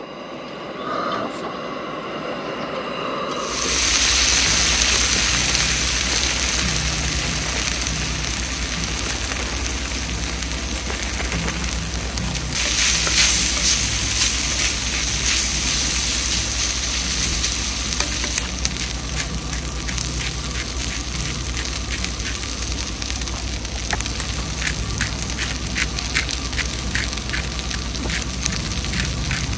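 Hash browns frying in a hot pan on a camp stove. The sizzle starts suddenly about three and a half seconds in, as they go into the pan, and carries on steadily with sharp crackles and pops, more of them in the second half.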